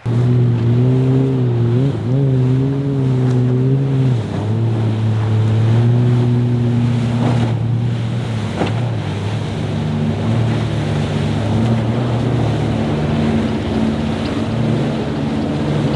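Motorboat engine running through rough water, its pitch rising and dipping over the first few seconds and then holding steadier, over the steady wash of waves and spray with wind on the microphone.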